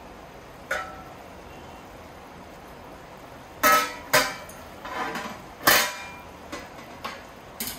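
Metal cookware clanking as a covered cooking pot is uncovered and checked: one ringing clank about a second in, then a run of sharp metal knocks from about three and a half seconds on, the loudest near six seconds.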